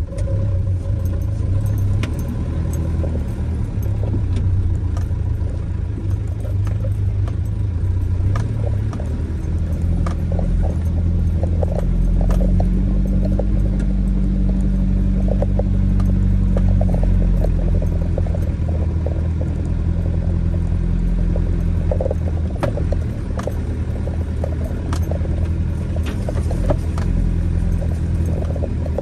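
Vehicle engine running at low speed on a rough dirt track, with many small rattles and knocks from the body and loose items as it bumps over the ruts. The engine note rises somewhat between about a third and halfway through, then settles.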